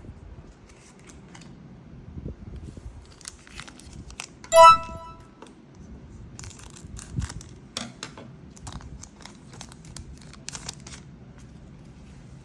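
Packaging crinkling and tearing in short rustling strokes as Pokémon card packs are opened by hand. A single short, bright ringing tone sounds about four and a half seconds in and is the loudest sound.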